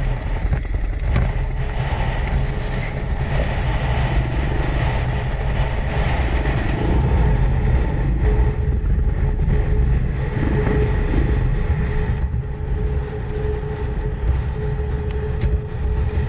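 Motorcycle running on a trail ride, its engine drone under a heavy low rumble; a steady whine joins about eight seconds in.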